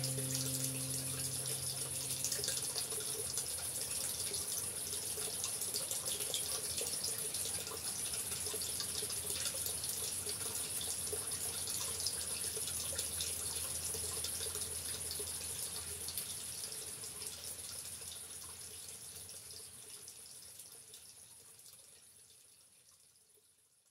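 A steady rushing sound like running water, the background track of a slideshow, with the last notes of guitar music dying away about a second in. The rushing fades out gradually over the last several seconds.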